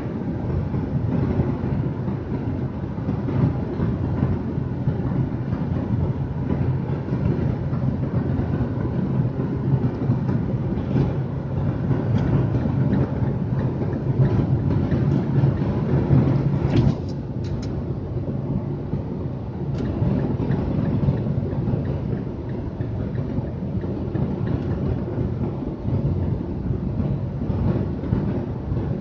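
Steady road noise heard inside a car's cabin at expressway speed: tyre rumble and engine drone with a constant low hum. The level dips slightly about halfway through.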